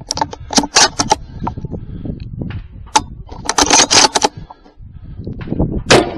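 Rifle and shooting gear being handled: bursts of sharp clicks, knocks and metallic rattles as the rifle is moved between positions. The bursts are loudest about a second in and around four seconds in, with one hard knock near the end.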